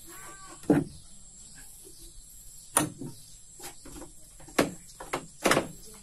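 A series of sharp, unevenly spaced knocks and clacks, about seven of them, the loudest about a second in, near three seconds in and near the end.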